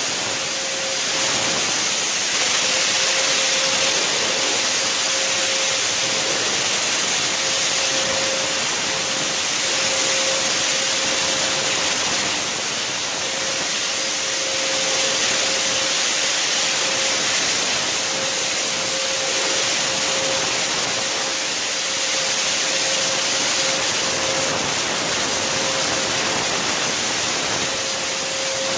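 Electric cold fogger running continuously, its blower motor giving a steady rushing hiss with a constant whine as it sprays disinfectant mist.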